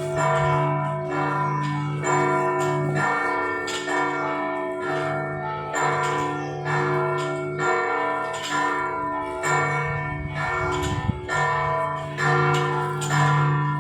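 Church bells of St John's Co-Cathedral, bells 1, 3, 4, 5 and 6, ringing together in a steady run of overlapping strokes, about two a second. Each stroke rings on into the next over a low sustained hum.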